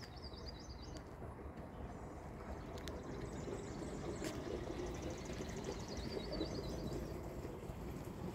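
Woodland birds chirping and trilling: short high chirps near the start and again near the end, with a fast high trill in the middle, over a steady low background rumble. Two brief clicks are heard in the middle.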